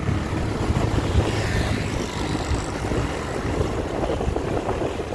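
Motorcycle engine running steadily at cruising speed, mixed with wind and road noise from the moving bike.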